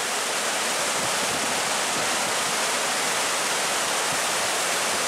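River floodwater pouring over a small check dam (bandhara), a loud, steady rush of water.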